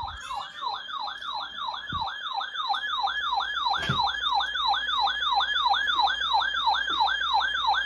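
Electronic siren sounding a rapid yelp: a loud tone that rises and falls about three times a second in an even, unbroken rhythm.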